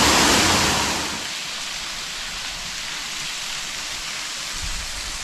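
Waterfall splashing into its pool with a steady rushing hiss. It is louder for the first second, then settles to a lower, even level.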